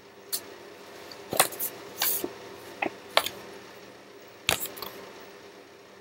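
Handwritten paper index cards being handled and swapped: a string of short paper rustles and taps, bunched in several quick clusters, over a steady low background hum.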